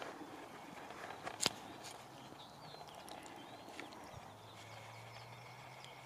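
Quiet field ambience: faint rustling footsteps through grass, a few faint bird chirps, and a single sharp click about one and a half seconds in. A faint low drone comes in past the halfway point.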